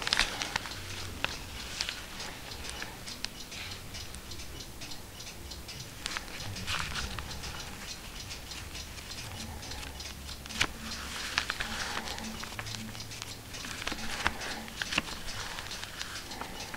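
Pages of a 1709 book being turned and handled with cotton gloves: repeated bursts of stiff old paper rustling and crackling, with a few sharp clicks.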